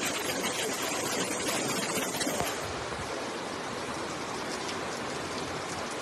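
Rushing floodwater, a steady noise of fast-moving water. About two and a half seconds in it cuts abruptly to the slightly quieter, even hiss of heavy rain falling on a flooded street.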